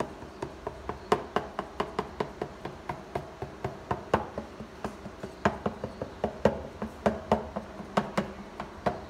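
Kitchen knife tip pricking rolled pizza dough and tapping through it onto the plate: a steady run of short, sharp taps, about three a second. The dough is being docked so that it won't puff up when cooked.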